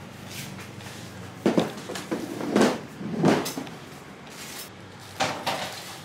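Red plastic produce crates being carried and set down on a table: a few dull knocks and bumps, a cluster about one and a half to three and a half seconds in and two more near the end.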